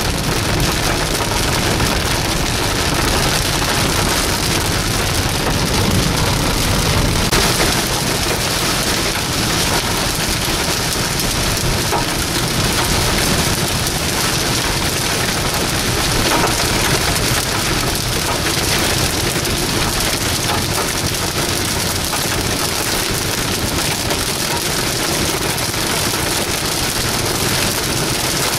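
Heavy rain hitting a car's windshield and roof, a steady dense hiss heard from inside the moving car.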